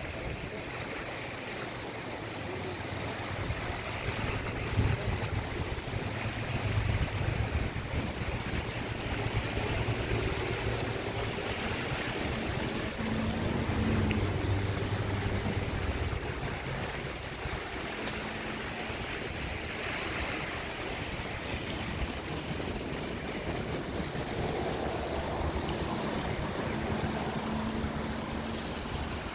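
Muddy river in flood rushing past in a steady wash of turbulent water, with gusts of wind rumbling on the microphone.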